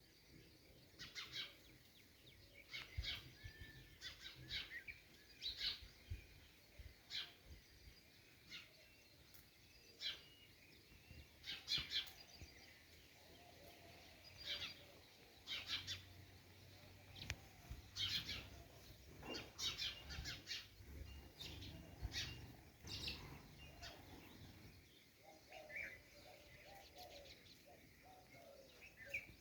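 Birds chirping inside a well: short, sharp chirps every second or two, echoing off the well walls.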